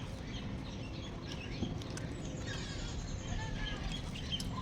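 Small birds chirping repeatedly over a steady low background rumble.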